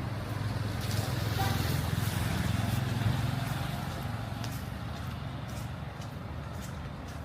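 A motor vehicle passing on a city street, its engine rumble and tyre noise swelling about a second in and fading away by about four seconds.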